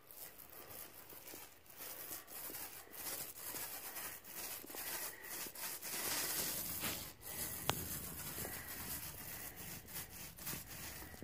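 Paint roller rolling wet paint over a textured drywall wall: a sticky crackling hiss that swells and fades with the strokes, loudest a little past the middle, with one sharp click about two thirds in.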